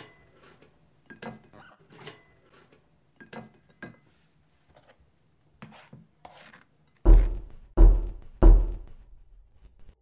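Soft clicks, taps and scrapes of hands working at a kitchen counter, then three loud, deep thuds about two-thirds of a second apart, about seven seconds in.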